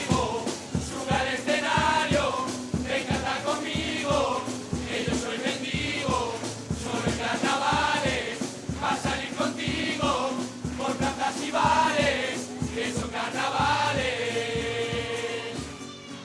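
A murga chorus singing together in unison, men's and women's voices, over a steady percussion beat. The singing stops near the end.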